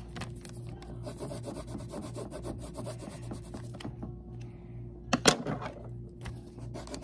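Colored pencil scratching and rubbing on paper in quick, dense strokes, with a brief louder sound about five seconds in.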